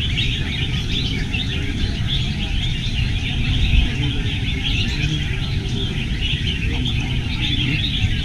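Many caged red-whiskered bulbuls singing at once: a dense, unbroken chorus of overlapping chirps and warbles, over a low background rumble.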